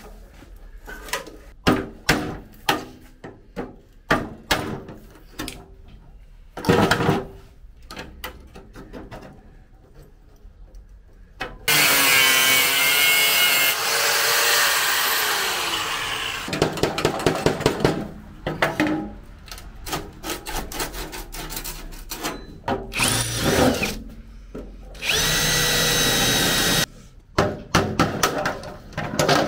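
Workshop tool noise: a string of short clicks and knocks, then a power drill runs loudly for about five seconds from around twelve seconds in, with its pitch sliding. It runs again for about two seconds at a steady speed near the end, between more clicks and knocks.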